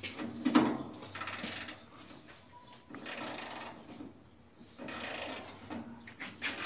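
A hand tool working a screw or bolt loose on a car body, in about four short bursts of fast mechanical clicking.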